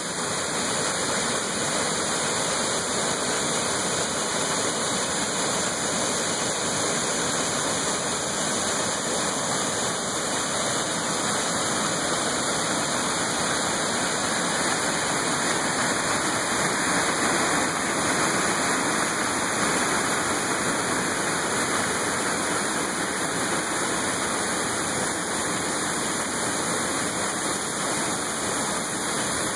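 Waterfall and the creek below it rushing in full flow after heavy rain: a steady, unbroken noise of falling and running water.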